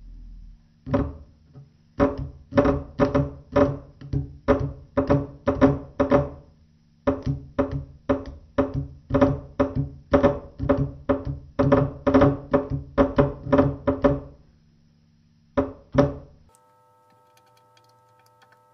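Electric pressure horn giving a rapid series of short beeps, about two to three a second, as it is switched on and off on a battery to test it after repair. The beeps stop about two seconds before the end, after a last pair.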